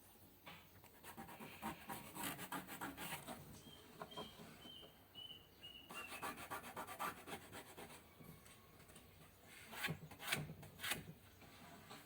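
Faint scraping and rubbing on wood in three bursts of quick strokes. Between the first two bursts comes a short row of high chirps. No power tool is running.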